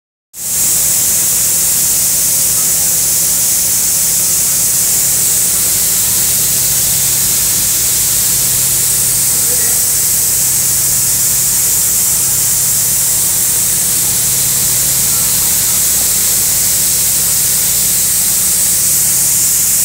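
Steady, loud high-pitched hiss, like pressurised air or spray escaping, starting abruptly. A low hum underneath swells and fades in stretches of a second or two.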